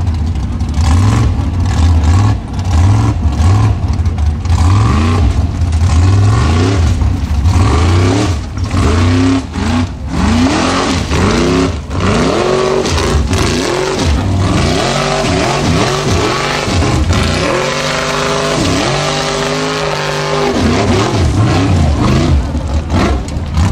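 Formula Offroad buggy's engine revving hard under load as it climbs a steep dirt slope with its wheels spinning. The pitch rises and falls over and over in quick blips as the throttle is worked, and it holds steadier for a couple of seconds near the end.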